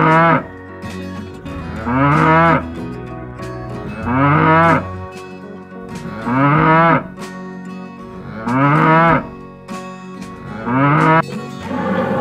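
Cow mooing over and over: six short calls about two seconds apart, each rising in pitch and identical in shape, over background music with sustained tones.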